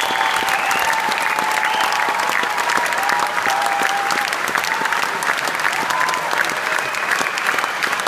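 Large theatre audience applauding steadily: dense, even clapping from many hands, at a curtain call.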